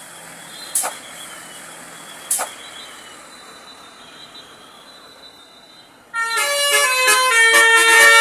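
Telolet horn of a Basuri tour bus, a set of musical air horns, bursting in loudly about six seconds in and playing a melody of several steady tones that step from pitch to pitch. Before it, a quiet background hiss with two short sharp clicks.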